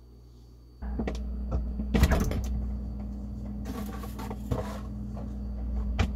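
A steady low electrical hum from a kitchen appliance switches on about a second in. Over it come clinks and rattles of bottles and jars on the refrigerator door shelves as the fridge is opened and things are taken out, with a louder clatter near the end.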